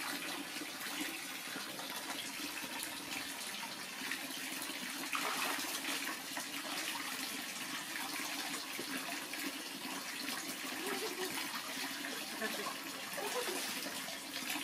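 A stream of water pouring steadily into an inflatable paddling pool, with splashing as a monkey swims and paddles through the water.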